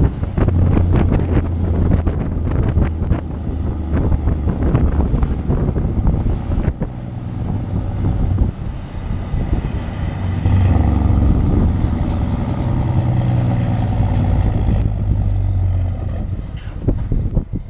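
Straight-piped Mack truck engine pulling hard under a heavy lowbed load of about 58 tonnes, with wind buffeting the microphone. The exhaust note dips briefly about eight seconds in, then pulls steadily again.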